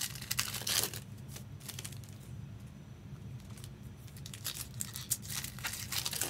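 Foil trading-card pack wrappers being torn open and crinkled, in rustling bursts of about a second near the start and again near the end, with a few short crackles between.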